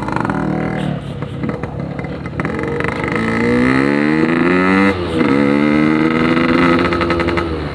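Yamaha RX-King's 135cc single-cylinder two-stroke engine running through a Packing Power PK2 aftermarket exhaust, accelerating on the road: the revs climb in two long sweeps, with a brief drop about five seconds in as it changes gear.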